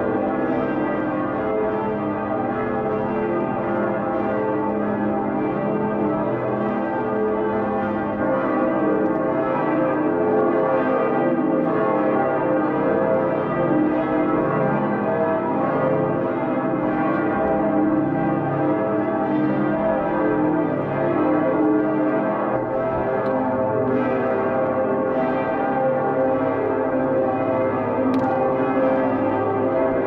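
Cologne Cathedral's church bells ringing together in a full peal, a dense, unbroken wash of many overlapping bell tones.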